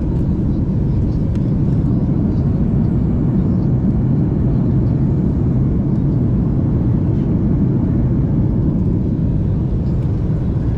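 Steady low rumble of engine and airflow noise inside the cabin of a Boeing 737 MAX 8 airliner in flight.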